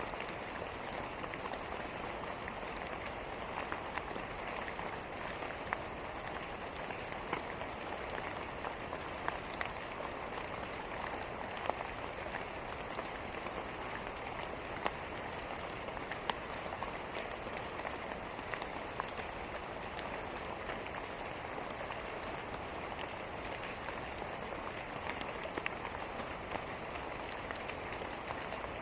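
Steady rain falling, a continuous hiss with many scattered drops ticking sharply on a surface.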